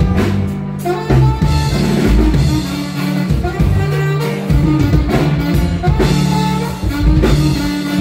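A norteño band playing live, with a bass line walking under a melody lead and a steady drum beat.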